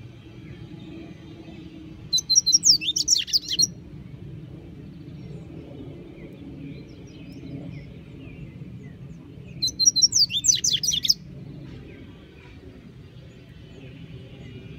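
Double-collared seedeater (coleiro) singing: two short phrases of quick, high, sweeping notes, each about a second and a half long, the first about two seconds in and the second near ten seconds in, over faint low background noise.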